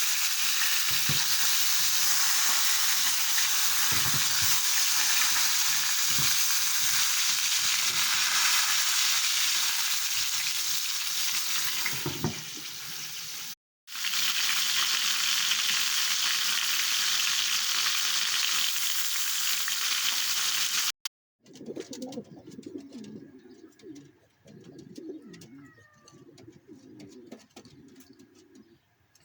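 Food frying in hot oil in a pan, a steady sizzling hiss broken by a brief gap about 14 seconds in. It stops abruptly about 21 seconds in, and pigeons coo softly after.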